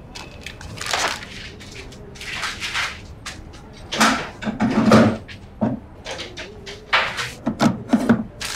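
Footsteps and furniture handling: a string of irregular knocks and scuffs, loudest about four to five seconds in.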